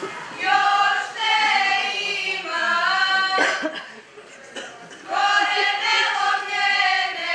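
Women's folk choir singing a Serbian folk song a cappella, in long held phrases with several voices together, pausing briefly a little past the middle before the next phrase.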